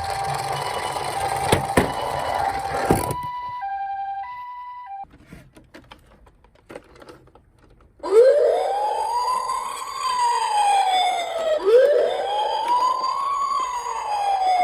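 Ambulance two-tone siren sounding 'pee-po', alternating between a higher and a lower note over a low rumble, stopping about five seconds in. After a short lull, a police car siren wails up and down twice, each rise and fall taking about three and a half seconds.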